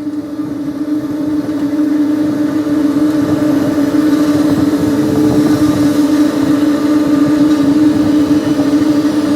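Heavy construction machine running steadily with a strong constant hum and low rumble, growing louder over the first few seconds as it comes closer or works harder.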